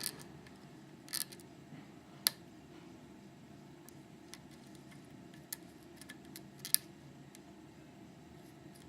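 Sparse small metallic clicks and ticks of a lock pick and tension wrench working the pin cylinder of a Viro Totem chain lock, the sharpest a little over two seconds in and near the end, over a low steady hum.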